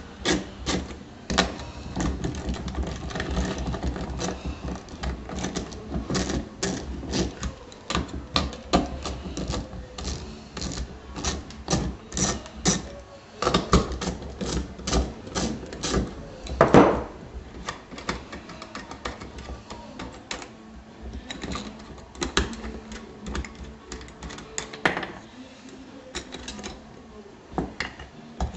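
Rapid metallic clicking and clinking of a wrench and steel lock nuts being worked off the bolts of an HHO dry cell, with small parts clacking down on wood. The clicks are dense for about the first half, then sparser, with one louder clatter around the middle.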